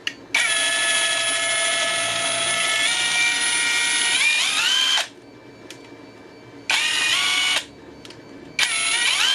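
Cheap cordless impact driver running free on a fitted Makita battery: a steady motor whine for about four and a half seconds that steps up in pitch midway and winds down when the trigger is released, then two short trigger pulls, the last spinning up quickly. The tool running shows the adapted battery powers it.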